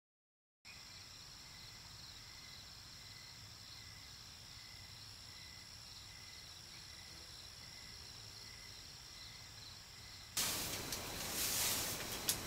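Faint chorus of insects chirping steadily in a rural setting. About ten seconds in, a straw broom starts sweeping a packed-earth floor, a louder scratchy rustling.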